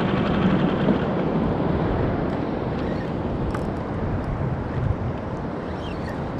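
Wind buffeting the microphone on an open small boat, with a steady rush of wind and water around the hull.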